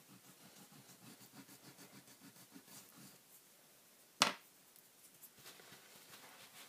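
Oil pastel stick rubbed back and forth on card in faint, quick scratchy strokes, then a single sharp tap about four seconds in.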